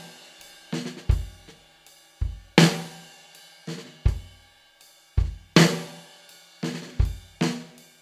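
Music: a drum kit plays a steady beat of kick drum, snare and cymbals, about two hits a second, over held chords, with no singing.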